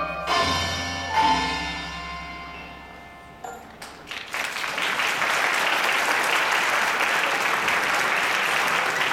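Children's mallet percussion (xylophones and glockenspiels, with a low bass bar) plays its last struck notes, which ring and fade out. About four seconds in, the audience starts applauding steadily.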